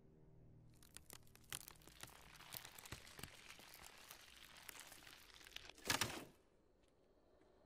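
Crackling and splitting sound effect of old painted wood cracking and peeling as the sign ages: a dense run of sharp cracks that ends in a louder burst about six seconds in, followed by a few faint clicks.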